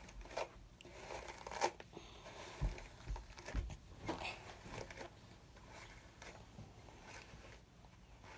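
Close rustling and handling noises: scattered clicks and scrapes with a few soft thumps.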